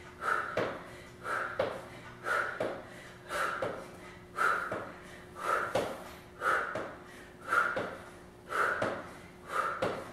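A woman's forceful breaths during front plank knee crunches, one sharp exhale about every second in time with the reps, each paired with a soft tap.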